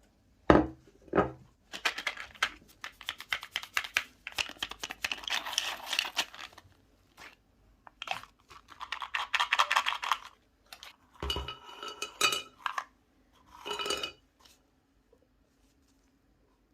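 Utensils and dishes clinking and scraping during food handling, with two dull knocks near the start, long stretches of dense rapid crackling, and short ringing clinks near the end.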